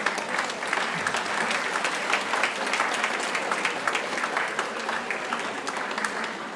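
Audience applauding: dense, continuous clapping that eases off slightly near the end.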